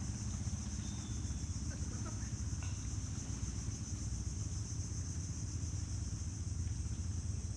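Motorcycle engine running with a steady low rumble, under a constant high drone of insects.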